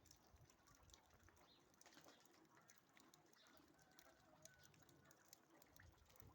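Faint, low cooing of domestic pigeons, with a few faint high chirps.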